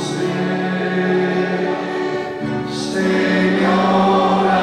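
Voices singing a slow worship hymn together, long held notes that move to new notes about two and a half and three seconds in.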